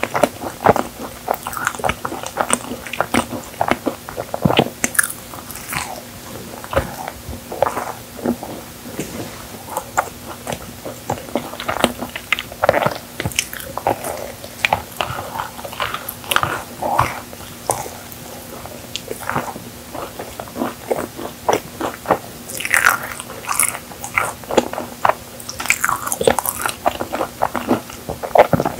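A person biting and chewing a chocolate-coated marshmallow cookie: a steady run of mouth clicks and smacks with crunchy bites.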